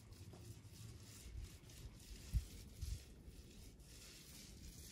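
Faint rubbing strokes of a long-handled painting tool worked over a rough, flaking rendered wall. Two short low thumps come about halfway through.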